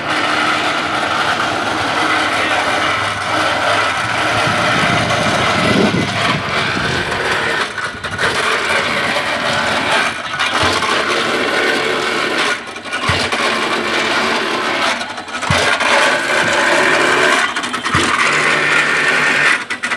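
Motor and winch of a small pile-boring rig running steadily while a tamping weight is dropped down a bored foundation hole, giving a thud about every two and a half seconds from about eight seconds in.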